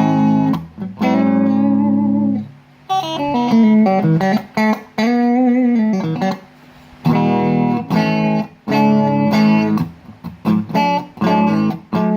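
Electric guitar played through a small Vox amp and heard from the room: ringing chords with short breaks between them, and in the middle a run of single notes with string bends.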